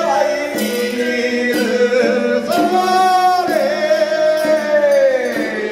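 Taoist priest chanting ritual liturgy in a slow sung melody, amplified through a handheld microphone, with long held notes that bend up and down.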